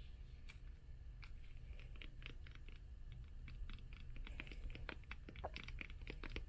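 Fingernails tapping on old hardcover book covers and spines: irregular, quick, light clicks, growing denser about two seconds in, over a steady low hum.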